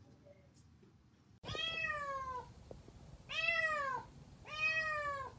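A domestic cat meowing three times, each a long drawn-out meow that drops in pitch at the end. The first comes about a second and a half in.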